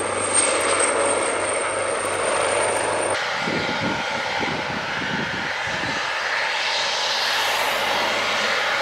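Twin-turbine AgustaWestland AW139 helicopter running: a steady high turbine whine over the rotor noise, then, after a cut about three seconds in, the rotor blades beating in quick pulses for a few seconds before settling into a steadier rush.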